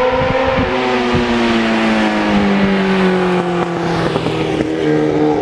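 Sport motorcycle engine running as the bike rides up, its pitch sliding steadily down over the first few seconds, with a shift to a higher note near the end.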